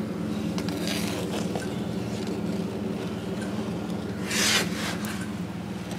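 Snowmobile with its engine running and the repaired rubber track spinning freely, a steady mechanical hum; the track runs smoothly, held with glue, bolts and pop rivets. A brief louder hiss comes about four and a half seconds in.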